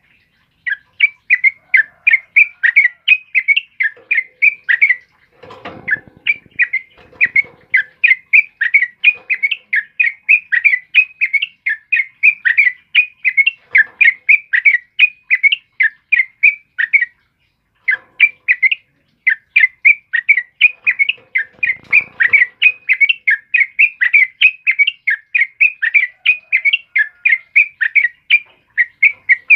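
Yellow-vented bulbul (trucukan) singing a rapid, unbroken-sounding run of sharp chirping notes, several a second, pausing briefly about half a second in and again a little past halfway. Two short, soft low rustles come in about a fifth of the way in and about three quarters through.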